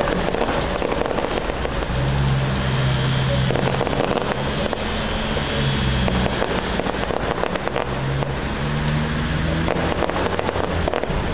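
Distant fireworks barrage: a continuous rumble of bangs and crackles, with a low hum underneath.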